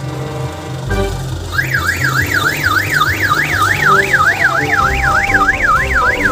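Music with a steady bass line, joined about a second and a half in by an electronic siren warbling rapidly up and down, about three sweeps a second.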